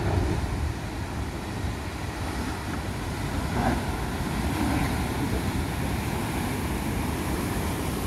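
Heavy ocean surf breaking and rushing, a steady loud roar of water with a deep rumble, swelling at the start, with wind buffeting the microphone.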